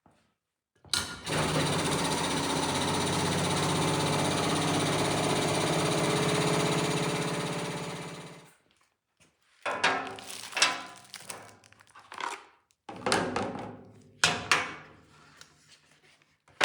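A power tool's motor starts up, runs steadily for about seven seconds and winds down. It is followed by a run of irregular knocks and clunks.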